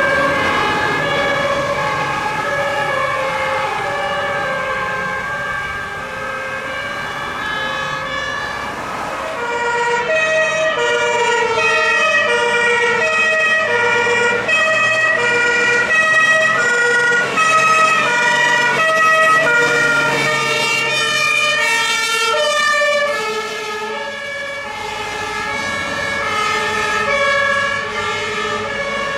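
Several emergency-vehicle two-tone sirens (German Martinshorn) sounding at once, their alternating high and low tones overlapping out of step. They grow louder about ten seconds in and ease off somewhat near the end.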